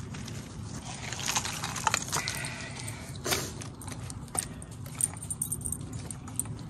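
Clicking and rattling of the metal and plastic parts of a folding hand tool being collapsed, in scattered sharp clicks, the loudest about one to two seconds in and again a little after three seconds.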